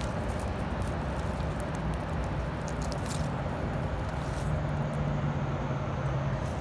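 Steady low outdoor rumble with faint rustles and crackles of dry leaf litter as morel mushrooms are picked by hand. A low steady hum rises out of the rumble for a couple of seconds near the end.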